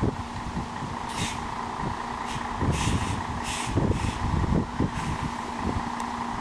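MAN A72 city bus's diesel engine idling at a stop with a steady hum. About four short hisses of air come from the bus in the middle, and wind buffets the microphone.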